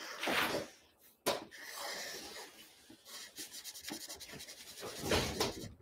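Black felt-tip marker drawing on a paper pad: separate rubbing strokes, a sharp tap about a second in, then a quick run of short scribbling strokes as a pupil is filled in.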